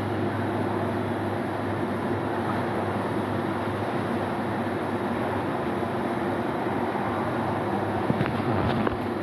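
Steady industrial machinery noise: a constant low hum under an even hiss, with a few faint clicks near the end.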